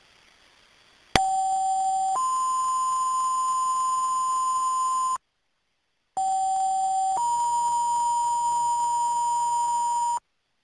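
Two-tone sequential fire-department dispatch page tone, sent twice. Each time a lower steady tone holds for about a second, then steps up to a higher tone held about three seconds, with a second of silence between the two sends and a faint hiss under the tones.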